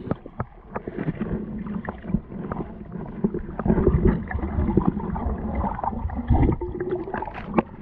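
Muffled underwater sound picked up through a waterproof camera housing under the ice: water sloshing and gurgling with many scattered knocks and clicks over a low rumble.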